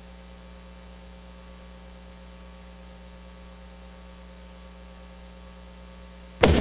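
Steady electrical mains hum. Near the end the routine's music starts abruptly and loud.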